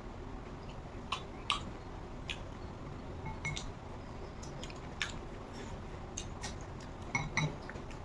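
Eating at a table: quiet chewing and hand-mixing of rice, with scattered light clicks and clinks. Some of them come from a spoon in a glass serving bowl.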